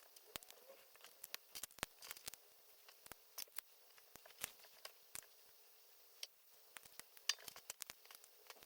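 Lego bricks being handled and pressed together during a build: many small, irregular plastic clicks and taps.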